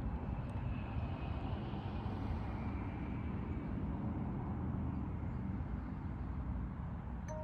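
Steady low rumble, like vehicle or traffic noise, with a brief two-note tone right at the end.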